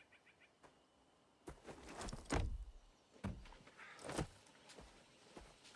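Heavy footfalls and thuds on forest ground and a fallen log as a man moves and lands on it, with the loudest thud about two and a half seconds in and others near three and four seconds. A short run of quick bird chirps sounds at the very start.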